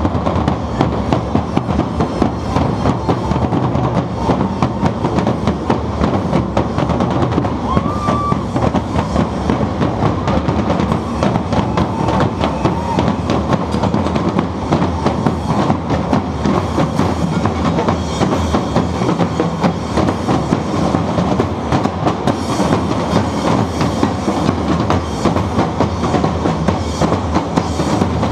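Street percussion band drumming: a loud, steady, dense rattle of drum strokes.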